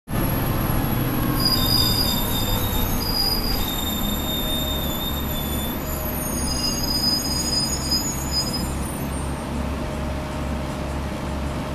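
Onboard sound of a 1992 TMC RTS-06 transit bus under way: its Detroit Diesel 6V92TA two-stroke V6 and Allison V731 automatic transmission running with a steady, pulsing rumble. High-pitched squealing tones come and go through the first two thirds.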